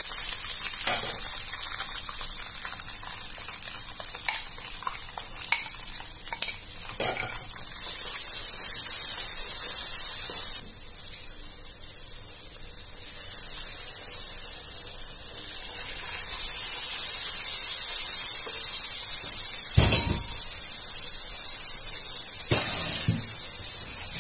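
Curry spice paste and sliced shallots, garlic and ginger sizzling in hot oil in a pot while being stirred with a wooden spatula, fried until the oil separates from the paste. The sizzle drops suddenly about ten seconds in and builds back up, and the spatula knocks against the pot a couple of times near the end.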